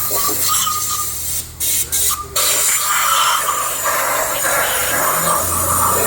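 Steady hissing spray cleaning a diesel engine block, broken off briefly twice about two seconds in.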